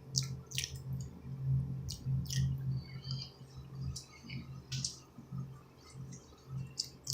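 Scattered soft clicks of keys being pressed on a slimline Bluetooth keyboard, about seven over several seconds at an uneven pace, over a faint steady low hum.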